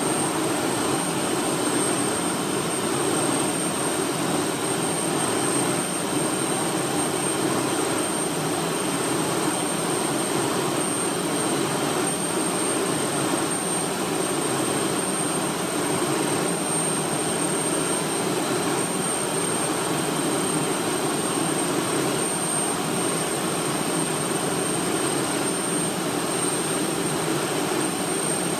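Steady, unbroken whirring hum with a faint constant high-pitched whine from a motorised display turntable.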